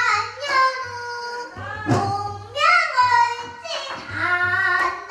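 A young girl singing pansori, the Korean narrative song, in long held notes that bend in pitch and break off, with sharp new starts several times.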